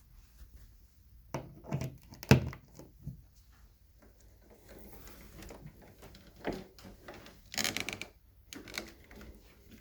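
Hard knocks and clatter of an Electrolux Discovery II upright vacuum being handled. A run of knocks comes about one and a half to two and a half seconds in, the loudest at about two and a half seconds, then a single knock near the middle and a short rattling burst a little before the end.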